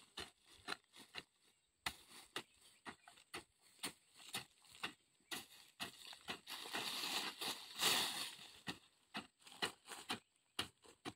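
Hand hoe chopping into soil again and again, sharp strikes about two a second, with a longer scraping rush about two-thirds of the way through.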